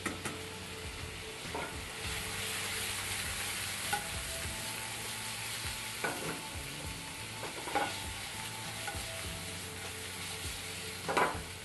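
Chicken strips sizzling in a hot frying pan, a steady hiss, with metal tongs clinking against the pan and pasta pot about five times, loudest near the end.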